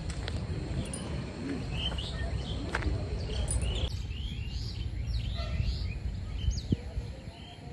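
Small birds chirping in quick short calls, thickest in the second half, over a steady low rumble.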